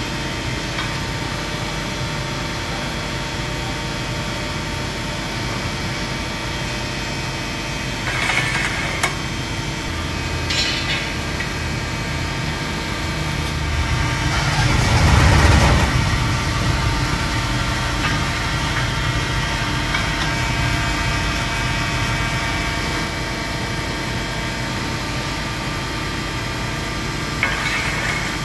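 Amada HFBO 110-ton hydraulic press brake running, its pump giving a steady hum with several steady tones. It swells louder for about two seconds midway as the ram makes a stroke. There are short hisses near 8 and 11 seconds and sharp clicks near the end.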